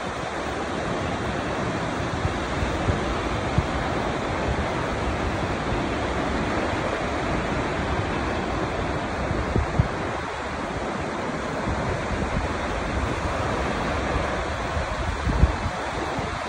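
Takakkaw Falls, a tall glacier-fed waterfall, rushing steadily in an even wash of noise. Low thumps of wind on the microphone come now and then, the clearest about ten seconds in and near the end.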